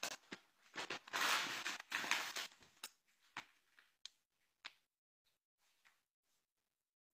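Rustling and handling noise close to the microphone, loudest about a second in, followed by a few sharp clicks and knocks that die away.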